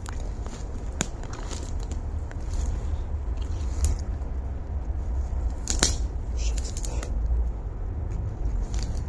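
Footsteps through overgrown brush, with twigs and dry vegetation crackling and snapping at irregular moments, over a steady low rumble.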